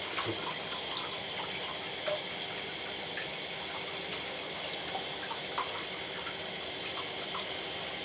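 Water running steadily from a bathtub tap, an even hiss, with a few faint small splashes.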